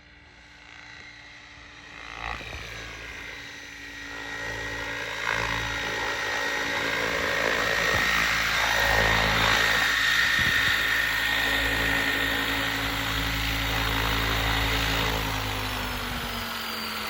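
Electric RC helicopter's motor and rotor whine, growing louder about two seconds in and staying loud as it flies close, then easing off near the end as its pitch slides down.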